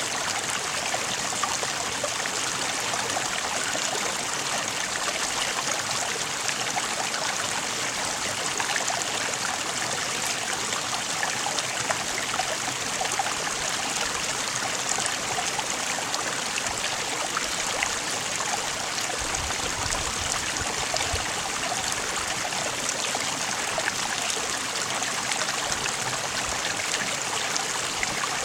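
Running water in a stream, a steady, even rush without pauses.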